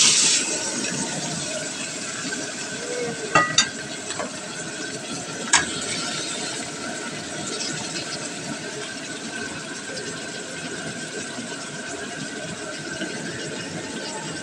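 Raw chicken pieces dropped into hot oil in a wok, with a loud burst of sizzling as they land that settles into a steady sizzle. A few sharp clinks against the wok about three and a half and five and a half seconds in.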